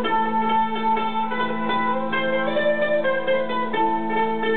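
Tamboura, a Bulgarian long-necked lute, being played: a plucked melody over a steady held drone note.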